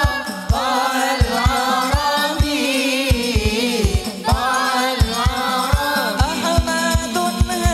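Hadrah sholawat: a lead voice singing an ornamented, gliding devotional melody over a hadrah drum ensemble, with deep bass-drum thumps about two to three a second in an uneven pattern, played loud through a PA sound system.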